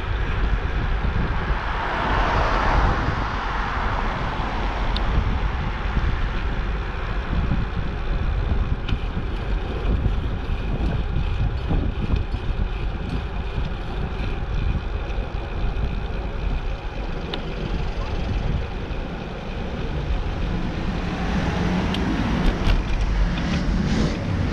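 Wind rushing and buffeting over the microphone of a camera on a moving bicycle, a steady rumbling noise that swells briefly about two seconds in and again near the end.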